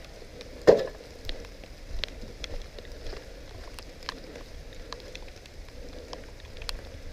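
A single sharp knock a little under a second in, followed by scattered light clicks and ticks over a faint crackling hiss.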